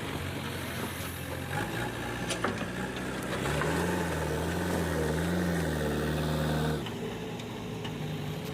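JCB 3DX backhoe loader's diesel engine running, revving up about three and a half seconds in, holding the higher speed for about three seconds, then dropping back to a lower steady run. A few sharp knocks in the first seconds.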